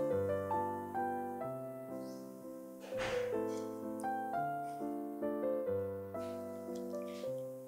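Gentle background piano music, a melody of single decaying notes over low chords. A brief soft rush of noise sounds about three seconds in.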